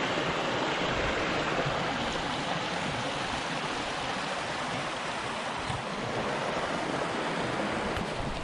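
Shallow rocky brook rushing and splashing over stones in small cascades, a steady even rush of water. The brook carries water overflowing from a dam upstream.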